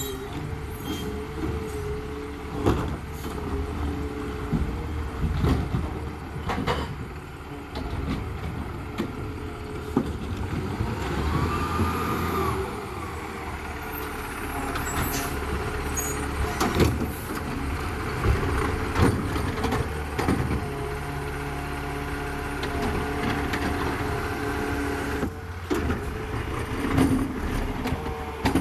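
Garbage truck engine running steadily, with sharp knocks and clanks at irregular moments throughout.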